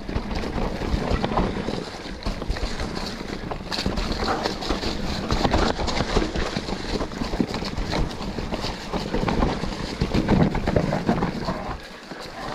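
Wind buffeting the action camera's microphone over the tyres of a Specialized Turbo Levo electric mountain bike rolling fast down a dry, leaf-strewn dirt trail, with frequent knocks and rattles from the bike over the rough ground. It eases off briefly near the end.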